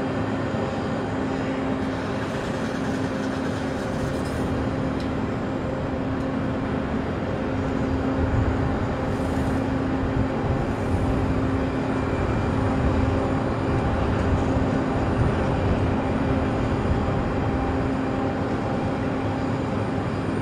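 Aircraft tow tractor's engine running steadily as it tows a Boeing 737-800 across the apron: a low rumble under a steady hum, a little louder from about eight seconds in.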